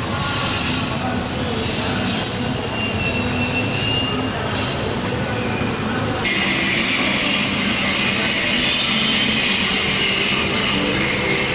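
Steady mechanical running noise, a dense rumble with hiss, that suddenly gets louder and brighter about six seconds in.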